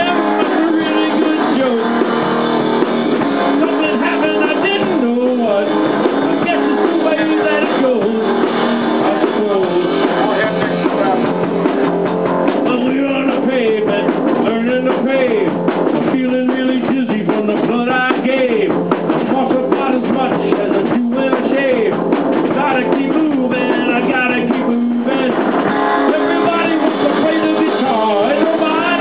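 Live rock band playing loudly: electric guitar over a drum kit, with a winding melodic line that bends up and down.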